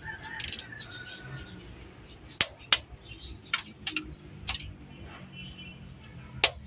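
Irregular sharp metallic clicks and clinks, about six of them, from hand tools and parts being handled during engine reassembly, over a low steady hum.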